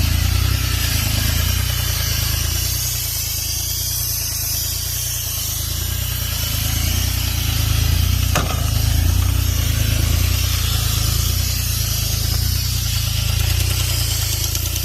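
Airman PDS90 towable air compressor's three-cylinder diesel engine running steadily just after starting, with one brief click a little past the middle.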